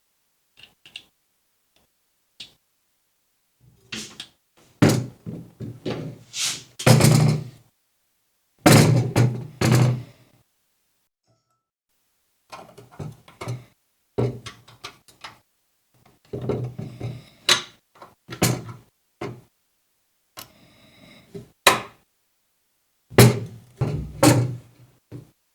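Irregular knocks and thuds in clusters, with dead silence between them and a short hiss about three-quarters of the way through.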